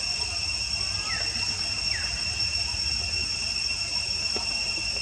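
Steady, high-pitched drone of an insect chorus, with two brief high calls that fall in pitch about one and two seconds in.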